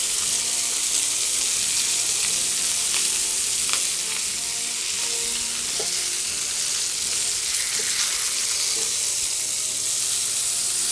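Burger patties of ground beef and ground peppered bacon sizzling steadily in a hot pan.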